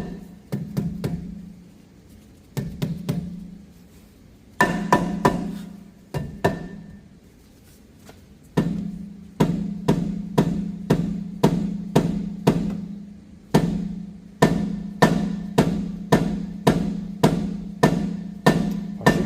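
Hammer blows on a seized steel rear brake rotor of a 2015 BMW X5, each strike leaving the rotor ringing with a low hum. A few scattered blows come first, then a steady run of a little more than one strike a second through the second half. The rotor is held fast because the parking brake was left on.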